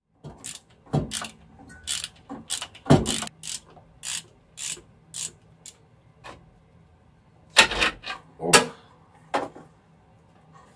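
Hand ratchet wrench clicking in short, irregular strokes as a starter motor's mounting nuts are undone. Near the end come two louder metal knocks as the starter is worked free.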